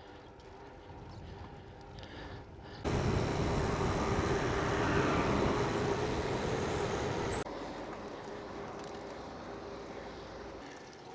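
Road noise outdoors, mostly a steady hiss with a faint hum. About three seconds in it jumps abruptly to a much louder stretch, which cuts off just as suddenly about four and a half seconds later.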